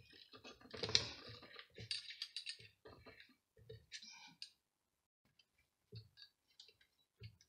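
Clicks and light knocks of a wooden dowel being fitted and screwed tight into the chuck of a small hobby lathe, as hands work the parts. The loudest click comes about a second in, and the clicks thin out after the first few seconds.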